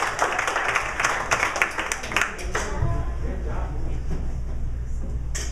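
Audience applauding, the clapping dying away about halfway through.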